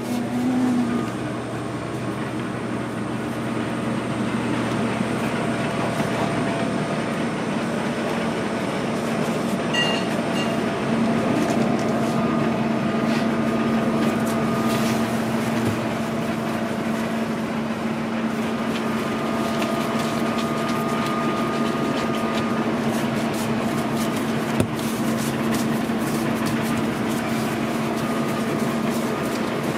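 Steady mechanical hum of kitchen machinery: a constant low tone with a fainter, higher tone that comes and goes, and a few faint clicks.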